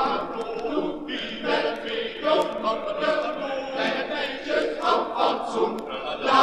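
Male voice choir singing in Dutch, from a 1962 single record.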